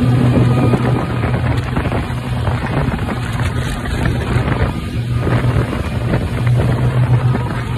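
Speedboat engine running steadily at speed, with wind buffeting the microphone and the rush of water from the hull and wake.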